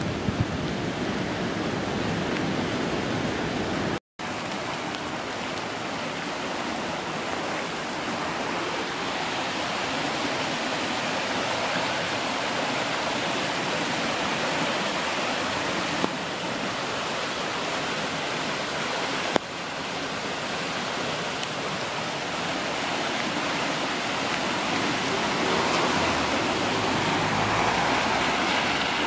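Stream in spate after heavy rain: fast, muddy floodwater rushing steadily. The sound cuts out for a moment about four seconds in.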